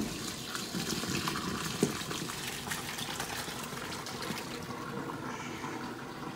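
Hot pasta water and penne pouring from a stainless steel pot into a metal mesh colander in a steel sink, the water gushing and splashing steadily. Two sharp clanks of metal on metal, the loudest right at the start and another about two seconds in, as the pot knocks the colander.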